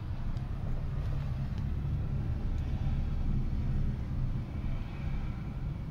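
Steady low rumble of a London black cab's engine and road noise, heard from inside the passenger compartment.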